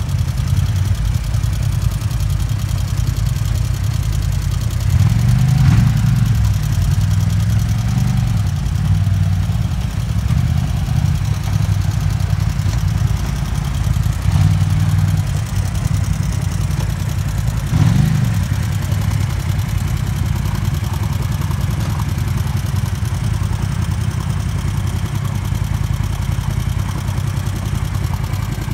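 Off-road vehicle engine running steadily at low revs, revving up briefly twice, about six seconds in and again a little past the middle.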